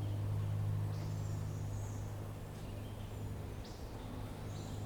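A few faint, scattered bird chirps over a steady low background hum.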